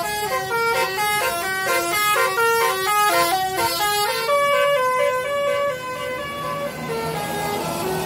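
Bus telolet horn, a multi-tone musical air horn, playing a quick melody of stepped notes at about four a second. About four seconds in it shifts to a few longer held notes, then dies away to street traffic noise near the end.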